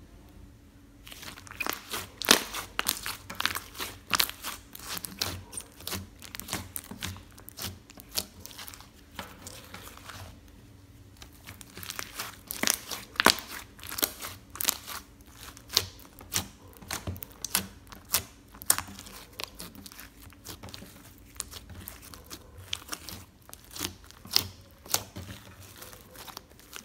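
White slime studded with small colourful beads, squeezed and kneaded by hand, giving quick irregular clicks and crackling pops as air pockets in it burst. The sounds start about a second in and pause briefly about a third of the way through.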